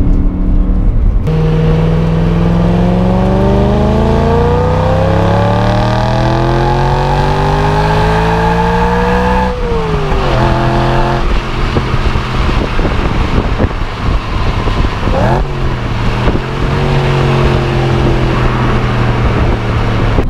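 BMW M3 E90's 4.0-litre V8 accelerating hard: the revs climb steadily for about eight seconds, then drop sharply at a gear change. The engine runs on at lower revs, with a brief quick rise in revs about fifteen seconds in.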